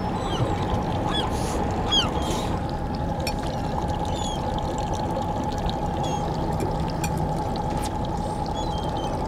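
Steady rush of running water, like water pouring, with faint, short high chirps scattered over it.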